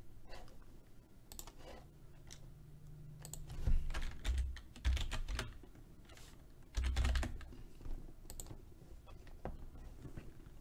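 Computer keyboard being typed on in short, irregular bursts of key clicks, some strokes landing with a dull low thump.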